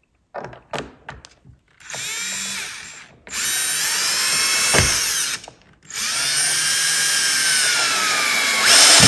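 Cordless drill/driver driving a long wood screw through a sofa leg's mounting block into the couch frame, running in three spurts with short pauses, its motor whine changing pitch under load. A few light clicks of the screw being set on the bit come first.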